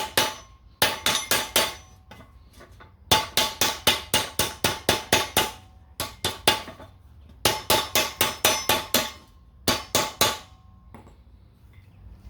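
Hammer tapping on a metal exhaust pipe, closing the pipe's cut slits down around the header collector. It comes in five runs of quick strikes, about four a second, each strike ringing briefly, with short pauses between runs.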